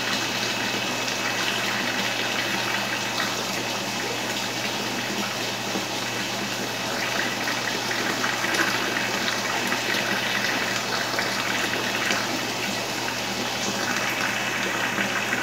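Steady rush of running water with a low steady hum underneath.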